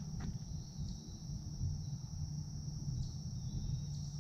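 Crickets chirring steadily in a woodland, with a steady low rumble underneath.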